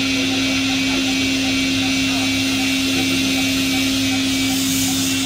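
Roku-Roku Sanyo HC-658 vertical machining center running under power: a steady hum at one mid pitch with a hiss above it, unchanging throughout.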